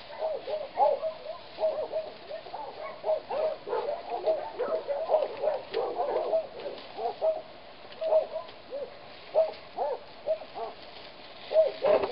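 Many short animal calls, repeated rapidly and often overlapping.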